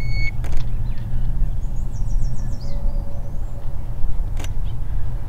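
A short electronic beep from a handheld digital fish scale as a bass is weighed on it, over a steady low rumble. A bird chirps a few high falling notes about two seconds in, and there are a couple of sharp clicks.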